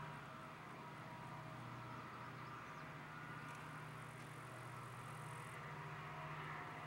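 Three EMD SD40-2 diesel-electric locomotives, each with a 16-cylinder two-stroke engine, working hard at full power up a grade, heard faintly across open ground as a steady low drone.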